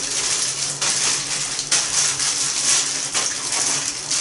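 Plastic wrappers of disposable hand warmers being torn open and crinkled one after another: a steady run of rustling with several sharp tears.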